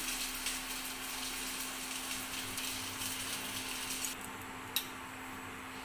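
Cooking oil being poured into a steel kadai, a soft steady hiss that stops about four seconds in, followed by a single click.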